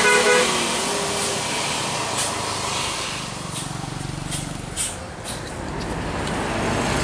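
Mercedes-Benz tour coach's diesel engine running as it rounds a sharp bend and passes close by, with several short hisses of air from its air brakes.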